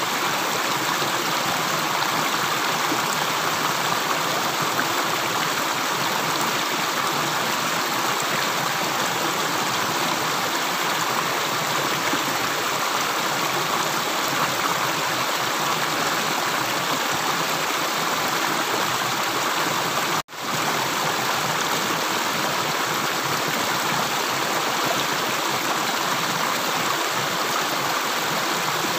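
Running water with a steady, even rush and no separate drips. It breaks off for a split second about twenty seconds in.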